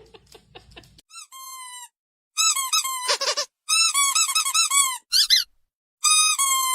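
Rubber squeaky toy squeezed over and over, giving a run of long high-pitched squeaks that dip in pitch at their ends, with short silent gaps between them.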